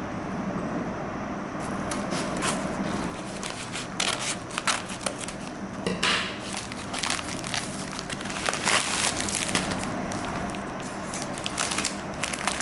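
Packaging being handled and opened: irregular crinkling and crackling that starts about a second and a half in and goes on in quick, uneven clusters over a steady low hiss.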